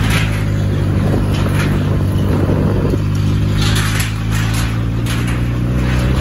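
Motorcycle engine running at a steady, unchanging pitch as the bike rolls along, with patches of hiss over it.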